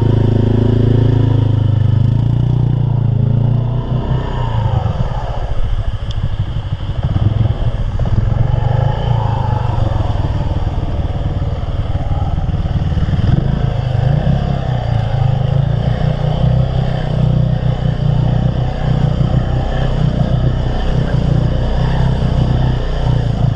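Mud bog truck's engine running loud, with a heavy low rumble and the revs swinging up and down several times.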